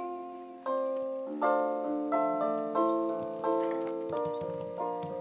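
Piano accompaniment playing an instrumental interlude between sung verses, a new chord struck about every two-thirds of a second.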